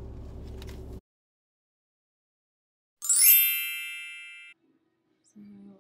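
Steady car-cabin rumble that cuts off after about a second, then about three seconds in a bright chime sound effect: a quick shimmering sweep into a ringing ding that fades over about a second and a half and then stops abruptly.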